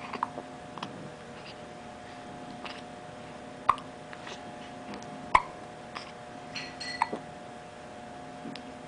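Three-week-old baby hiccuping: short, sharp hics at irregular intervals, the two loudest about three and a half and five and a half seconds in.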